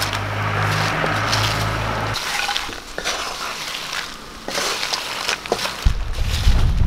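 Wooden spatula stirring crisp fried pappadam pieces in a non-stick pan, the dry pieces crackling and rustling with scattered sharp clicks and scrapes. A low hum sits underneath for the first two seconds and returns near the end.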